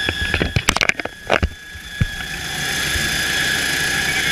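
Navy helicopter heard from inside the cabin: a steady turbine whine over engine and rotor noise. A quick cluster of knocks and rubbing close to the microphone comes in the first second and a half, and the noise is briefly muffled before it returns steady.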